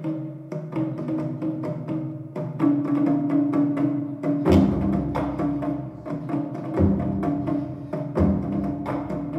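Instrumental dance music with a quick clicking percussive beat over pitched notes; deep bass hits come in about halfway through.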